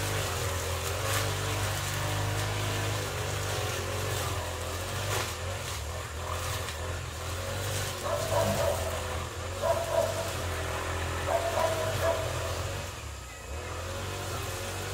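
A steady low engine drone, as of a vehicle running, with a few short higher-pitched sounds about eight to twelve seconds in.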